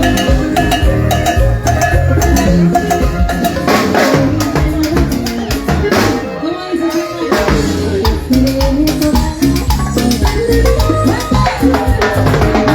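Loud Latin dance music in a salsa style, with drums and percussion keeping a steady beat. The bass drops out briefly a little past halfway, then comes back.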